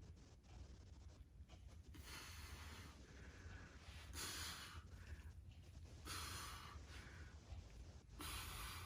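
A person breathing out hard four times, about every two seconds, each breath a short rush of air.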